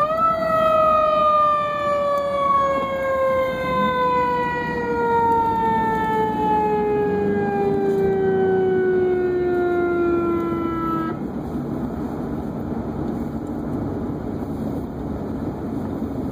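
Emergency vehicle siren wailing: a brief rise, then a slow fall in pitch over about ten seconds, cut off suddenly about two-thirds of the way through. Then only the vehicle's engine and road noise, heard inside the cab, remain.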